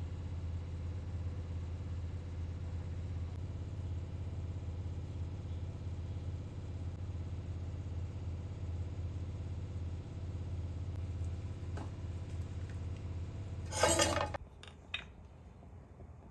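A steady low hum runs until about fourteen seconds in, then stops abruptly with a short, loud clatter of kitchenware, followed by two sharp clicks.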